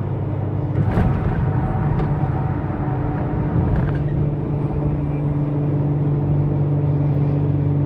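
Steady drone of road and engine noise heard from inside a car cruising at highway speed, with a short knock about a second in.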